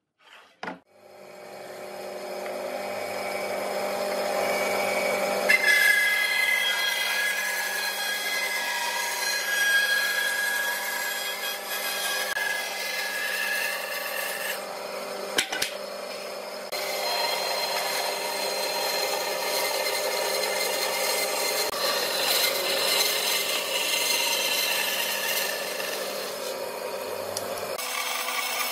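Band saw motor starting up and coming to speed over the first few seconds. From about five seconds in, the blade cuts a pine board along a marked line, with a brief lull in the cutting just past halfway.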